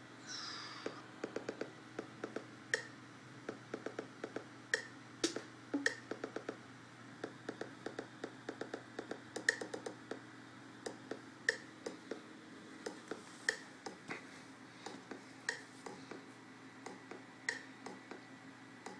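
Scattered light taps and clicks of fingers on an iPad touchscreen, some in quick runs and some about every two seconds, over a faint steady hum.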